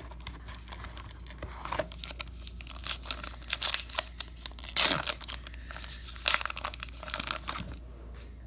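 Baseball card pack wrapper crinkling and tearing as it is ripped open by hand: a run of sharp crackles, with the loudest tears about five and six seconds in.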